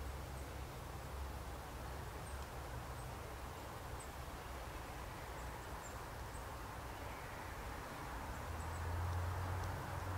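Pine forest ambience: a low steady rumble with a faint hiss, swelling slightly near the end, and scattered faint, short, high-pitched chirps.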